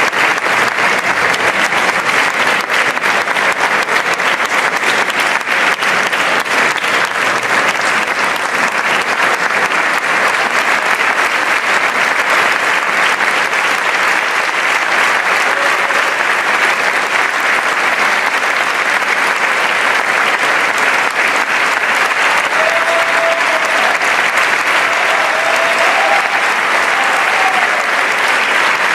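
A large theatre audience applauding steadily in a long, sustained ovation.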